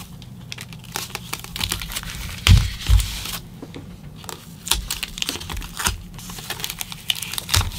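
Thin packing foam crinkling and clear tape being pulled and pressed by hand while wrapping a battery pack, a run of small crackles and clicks. Two dull thumps come about two and a half and three seconds in.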